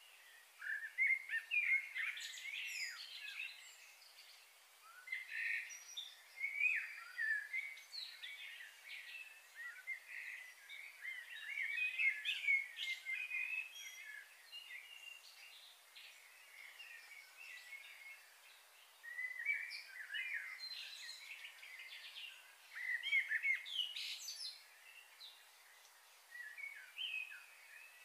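Small birds chirping, quick high chirps coming in bursts a few seconds long with short lulls between.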